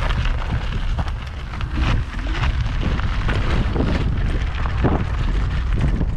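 Wind buffeting the microphone of a moving electric scooter, a dense rumble, with scattered knocks and rattles from riding over a rough path.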